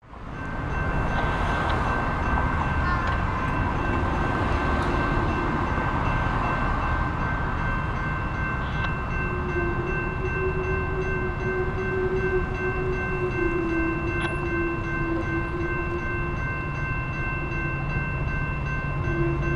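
Railroad grade-crossing bells ringing steadily over the low rumble of an approaching Metra commuter train led by an EMD F40PH-2 diesel locomotive.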